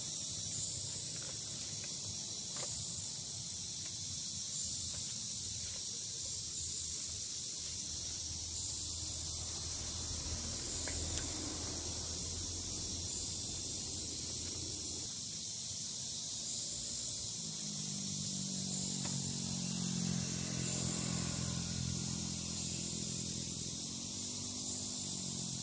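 A steady hiss with a low rumble beneath it. About seventeen seconds in, a low steady hum joins and runs on, wavering slightly near the end.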